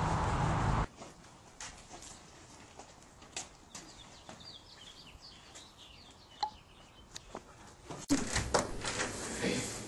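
Wind noise on the camera microphone for about the first second, cut off suddenly. Then a quiet stretch with faint bird chirps and a few small clicks. About eight seconds in, louder room noise with knocks and handling sounds.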